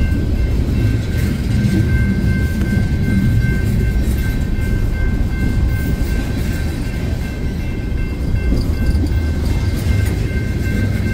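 Freight cars rolling past close by, steel wheels rumbling steadily on the rails, with a thin steady high-pitched ringing tone over the rumble.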